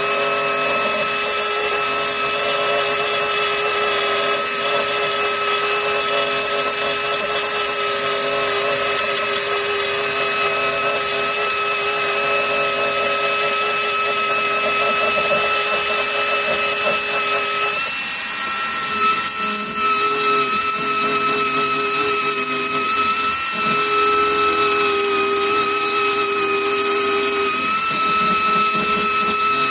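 Power drill running steadily with a high whine while drilling out rivets in a car door's inner panel. Its pitch shifts a little about two thirds of the way through.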